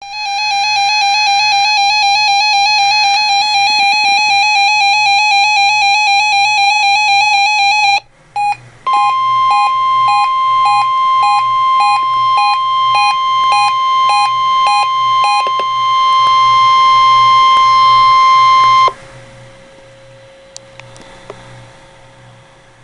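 Electronic emergency alarm tones. A warbling two-pitch tone runs for about eight seconds. Then come beeps about twice a second over the steady 1050 Hz National Weather Service alarm tone, which cuts off suddenly.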